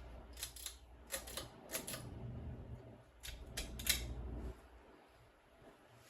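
A quick run of sharp clicks, loosely in pairs, as the Emerson Northwind ceiling fan's speed control is switched to high, over a low rumble that stops about four and a half seconds in.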